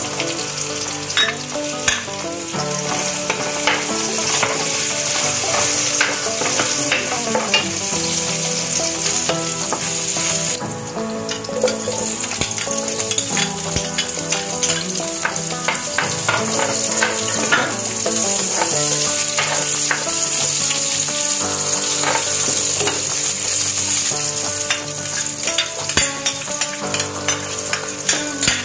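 Ginger, onion and garlic sizzling in hot oil in a frying pan while being sautéed, with frequent short clicks and scrapes of a metal ladle stirring against the pan.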